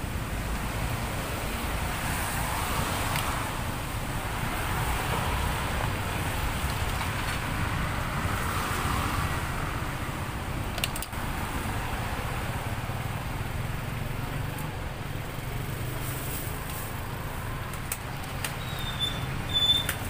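Steady roadside traffic noise with a few soft swells, as if from passing vehicles. A couple of light metal clicks from wire strainer baskets handled against a stainless pot.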